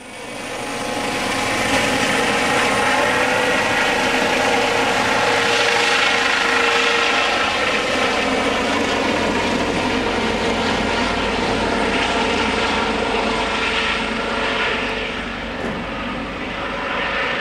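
Eurocopter EC 135 rescue helicopter flying overhead: a steady drone of rotor and turbine noise with a whine on top, easing slightly in the last few seconds as it moves away.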